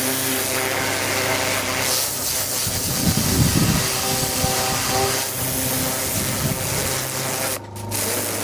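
Pressure washer running: the jet hissing against the Land Rover's aluminium panels and stripping the paint, over the steady hum of the pump. The jet breaks off briefly near the end.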